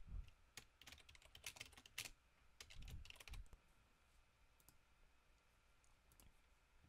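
Faint typing on a computer keyboard, a quick run of key clicks for about three seconds, then a single click near the end.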